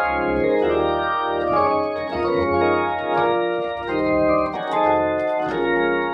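Hammond-style combo organ playing sustained chords that change every half second to a second, over low bass notes from MIDI bass pedals.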